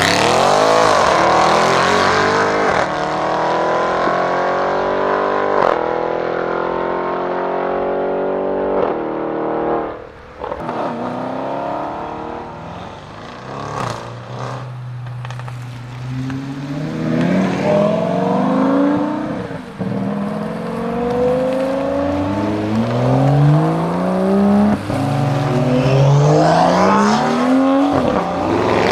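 Audi RS6 Avant C7's twin-turbo V8 running through a Milltek exhaust. Its pitch falls steadily over the first ten seconds; later it pulls hard several times in a row, rising in pitch with a sudden drop after each pull, as it accelerates through the gears. A few sharp cracks come in between.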